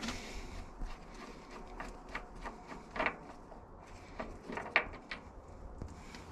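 Scattered light clicks and clinks of hand tools and parts being handled while a hydraulic pressure relief valve is taken apart, over a low steady rumble.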